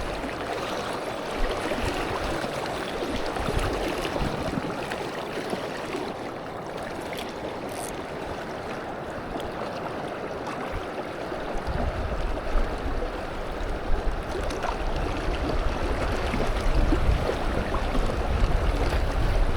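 Tidal water running and lapping along the channel's edge, a steady rushing noise; a low rumble joins about halfway through.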